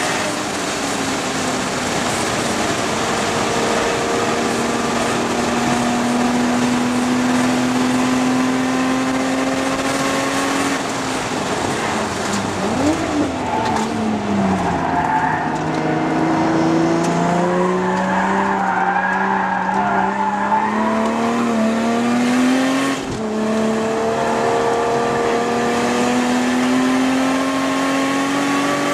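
Toyota Supra MKIV's 2JZ-GTE twin-turbo straight-six, heard from inside the cabin while being driven hard on track. The engine note climbs for about ten seconds, then falls away and builds slowly through the middle, with tyre noise from the corner. A sharp drop in pitch about two-thirds of the way in, typical of an upshift, is followed by another climb.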